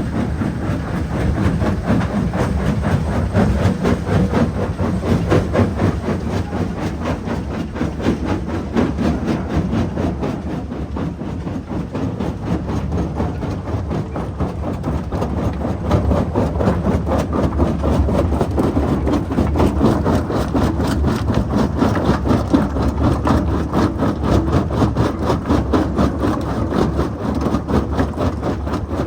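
Mobile jaw crusher running and crushing rock: a continuous heavy rumble with dense, rapid rattling over the drone of diesel engines. It dips slightly about a third of the way through, then picks up again.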